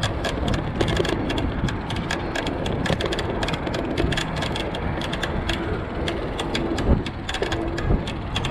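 Electric cargo bike being ridden at around 13 mph: a steady rush of wind and tyre noise, with frequent irregular clicks and rattles from the bike and one louder knock about seven seconds in. A faint steady whine, from the bike's motor, comes and goes.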